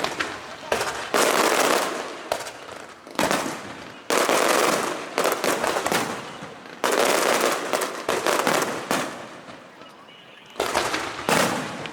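Fireworks display: aerial shells bursting one after another, a sudden loud burst every second or so, each fading away with a trailing hiss. There is a longer lull about midway through and another near the end.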